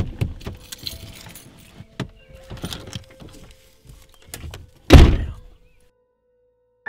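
Car door unlatched and opened, clicks and rustling as someone climbs out, then the door slammed shut with one loud thud about five seconds in.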